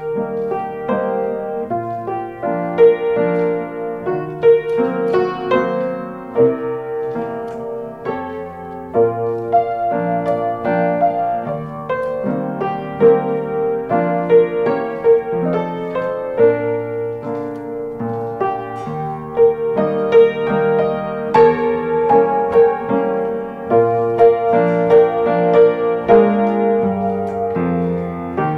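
Piano music: a slow, relaxed jazz-lounge tune played on piano.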